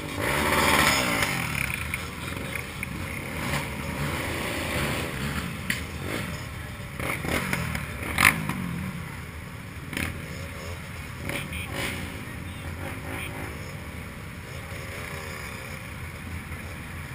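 Several motorcycle engines idling and briefly revving at low speed in a slow-moving pack, with people talking. A sharp click about eight seconds in is the loudest single sound.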